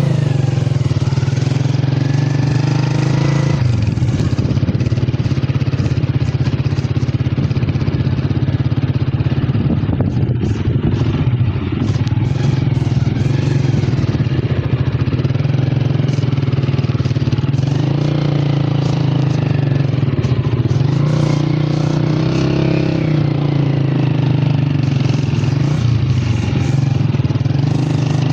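A vehicle engine running steadily under way, a continuous low hum that rises and falls a little in pitch now and then.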